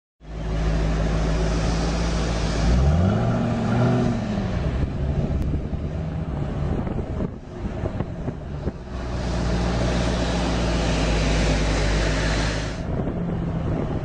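Nissan GT-R twin-turbo V6 running with a steady hum and a vacuum-cleaner-like hiss, revved once about three seconds in, its pitch rising and falling back within two seconds. The hum and hiss cut off abruptly near the end.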